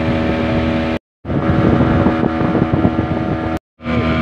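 Boat motor running steadily while the boat moves along the river. The sound cuts out completely twice, briefly: about a second in and near the end.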